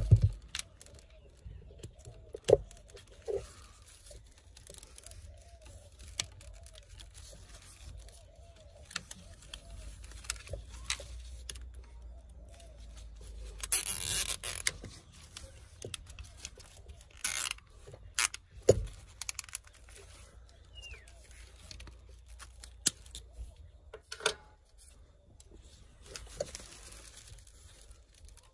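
Gloved hands handling a car's plastic ECU wiring connector and loom: scattered sharp plastic clicks and knocks, with a longer rustling scrape about halfway through.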